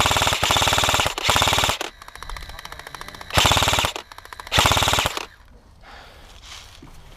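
G&P Stoner 63 airsoft electric gun firing full-auto in four bursts, a rapid rattle, the first about a second long and the others shorter. The firing stops a little after five seconds in.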